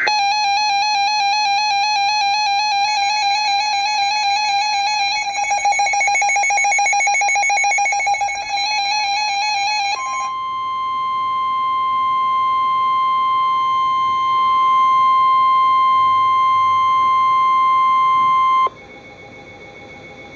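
Emergency alert tones from a NOAA weather radio: about ten seconds of a warbling electronic alarm tone, then the steady 1050 Hz warning alarm tone for about eight seconds, which cuts off sharply near the end. They signal that a warning, here a severe thunderstorm warning, is about to be read.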